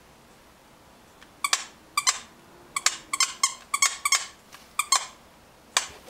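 Squeaker inside a plush dog toy being squeezed by a puppy's bite: about a dozen short, sharp squeaks in irregular clusters, starting about a second and a half in.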